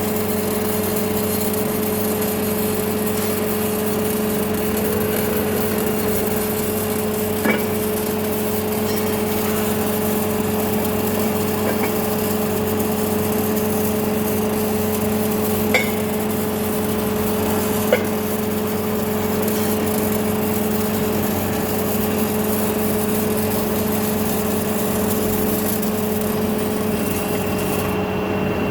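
Automatic welding machine running with a steady hum over constant machine noise, with a few sharp metallic clinks.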